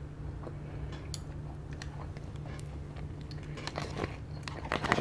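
Close-up eating sounds: mouth chewing with small wet clicks, then chopsticks clicking and scraping against a rice bowl in a quick cluster near the end, the loudest sounds here. A steady low hum runs underneath.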